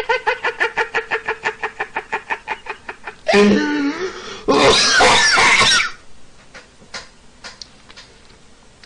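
A man laughing hard: a rapid, steady-pitched giggle of about eight pulses a second for the first three seconds, then two loud, breathy outbursts about three and a half and five seconds in. After that the laughter dies away and only a few faint clicks remain.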